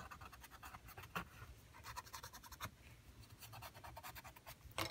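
Paper blending stub rubbed over water-soluble Stabilo pencil marks on a collaged book page, making faint scratching in quick short strokes.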